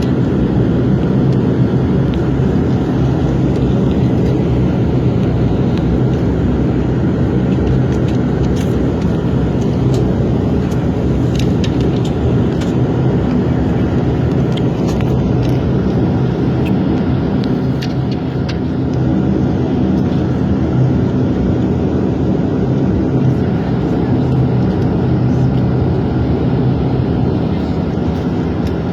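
Bombardier Q400's twin Pratt & Whitney PW150A turboprops and propellers, heard inside the cabin as a loud, steady drone with a set of low steady hum tones.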